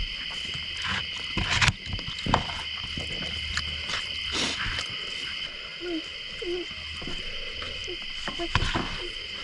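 Crickets chirring in a steady, high chorus, with a few sharp clicks and knocks over it.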